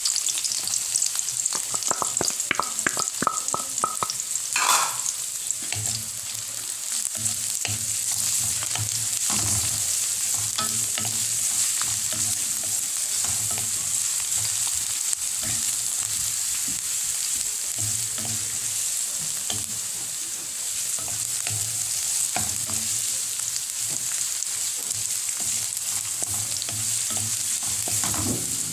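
Onions and garlic sizzling steadily in hot oil in a metal wok, stirred with a spatula that scrapes and clicks against the pan.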